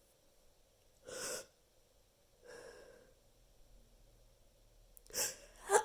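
A person's breathy inhalations building up to a sneeze: two faint breaths, then two sharper, louder gasping intakes near the end, as the sneeze is about to come.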